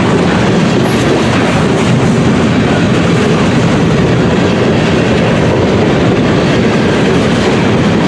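BNSF covered hopper cars of a freight train rolling past close by: a loud, steady din of steel wheels running on the rails.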